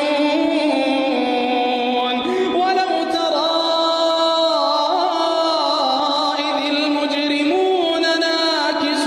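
A voice chanting melodically in Middle Eastern style, holding long notes joined by ornamented turns and slides in pitch.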